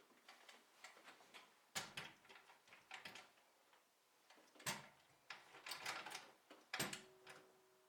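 Faint, scattered clicks and knocks of objects being handled, with three sharper knocks about two, five and seven seconds in. A faint steady hum starts near the end.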